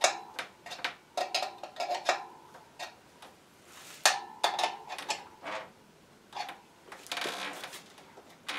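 Ratchet wrench clicking and clinking on metal as the front hub motor's axle nut is tightened into the fork dropouts, in irregular runs of ringing clicks with a short pause partway through.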